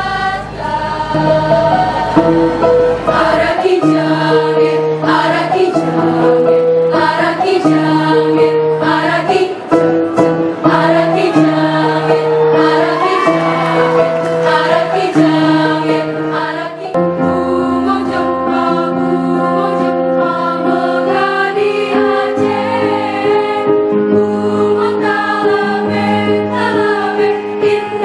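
Young women's choir singing in several parts, holding long notes that move together in chords. The sound changes abruptly a little past halfway.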